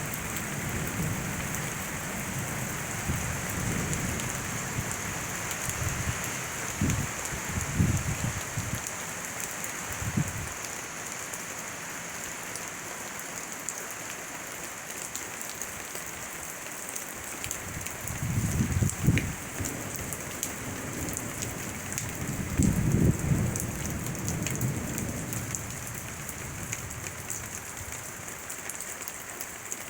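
Heavy rain falling steadily, a continuous hiss. Several low rumbles swell up and die away over a second or two each, the loudest about two-thirds of the way through: strong wind gusts or distant thunder.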